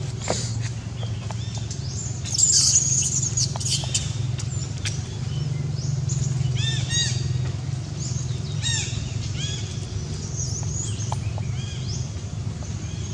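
Birds chirping in short runs of quick, repeated arched notes over a steady low hum, with a brief loud hissing rustle about two and a half seconds in.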